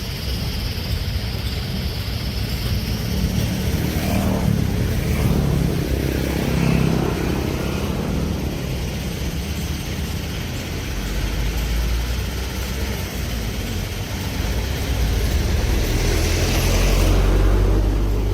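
Diesel engine of heavy earthmoving machinery running steadily with a deep rumble. It swells louder about a third of the way in and again near the end, as if working under load.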